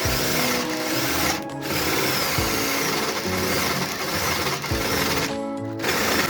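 Makita HP330D 12V cordless drill-driver running under load, boring a spade bit into hardwood in its second gear, with a short break a little after five seconds. Background music with a regular low beat plays underneath.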